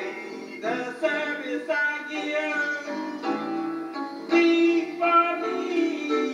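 A woman singing a slow gospel solo with piano accompaniment, her melody sliding and held over the piano's chords.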